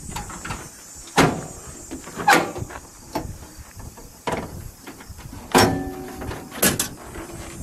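Hood latch of a 1954 Buick Skylark being worked to release the hood: four loud metallic clunks, some ringing briefly, and a few lighter knocks, a second or more apart.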